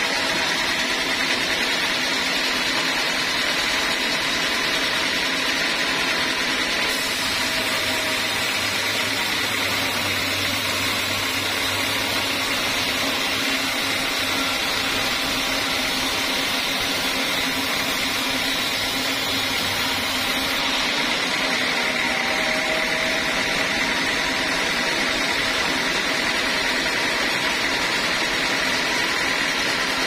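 Band sawmill running steadily, its blade sawing lengthwise through a slab of dry teak, with a steady high whine over the machine noise. A low hum joins from about seven seconds in and fades again about twenty seconds in.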